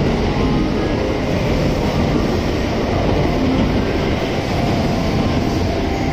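JR West 683 series electric train pulling into the platform, a steady rumble of wheels and running gear as its cars roll past.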